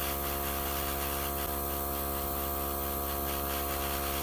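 Small airbrush compressor running with a steady hum, under the even hiss of air and paint spraying from the airbrush.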